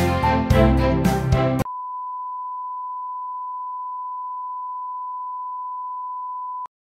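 Background music stops abruptly, then a broadcast line-up test tone sounds as one steady, unwavering beep for about five seconds and cuts off suddenly.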